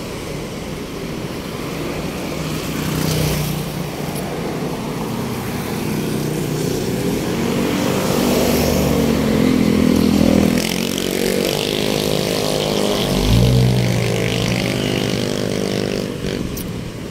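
Motor vehicle traffic going by: engines running and accelerating, with one louder engine whose pitch rises and shifts for several seconds in the second half.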